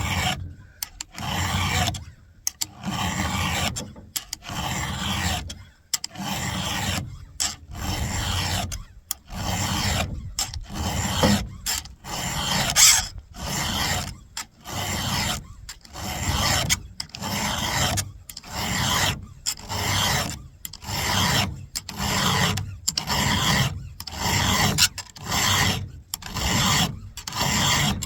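Round chainsaw file rasping across a rusty, badly worn steel cutter tooth of a saw chain, in steady back-and-forth strokes about one a second, taking the worn tooth down to a fresh sharp edge.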